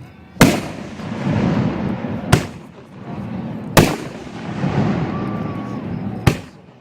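Aerial firework shells bursting: four sharp, loud bangs, each followed by a long rumbling echo. These are report shells (salutes), made for the bang rather than the display.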